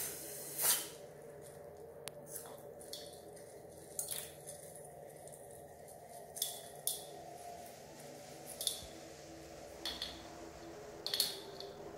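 Scissors snipping into a slime-filled balloon, then slime being squished and pressed into polystyrene foam beads in a plastic bowl. Short crackly squelches come every second or so, the loudest snip just under a second in, over a faint steady hum.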